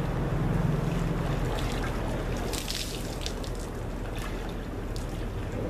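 Dry ice bubbling and fizzing in the water of a pickup-bed pool, over a steady low rumble, with a short crackling splash about two and a half seconds in.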